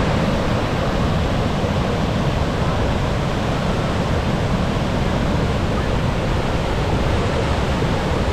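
Gullfoss waterfall's lower tier on the Hvítá River, heard close up: a steady, unbroken rush of heavy falling water, strongest in the low end.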